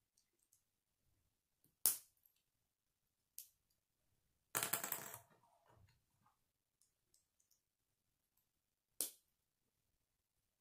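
Hard plastic K'nex rods, connectors and a wheel clicking as they are handled and snapped together: a few sharp single clicks, and a longer rattle of plastic parts a little before the middle.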